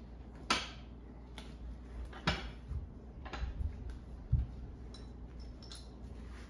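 Scattered metallic clicks and clinks from a lap-belt bracket and bolt being fitted at the base of a car seat, with a few dull thumps; the sharpest knocks come about half a second and two and a quarter seconds in, and a low thump comes near the end.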